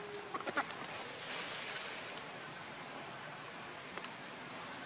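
Outdoor ambience: a few brief, sharp sounds in quick succession in the first half-second, over a steady high background hiss.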